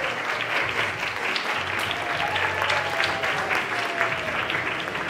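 Crowd of guests applauding, many hands clapping steadily, with some voices mixed in.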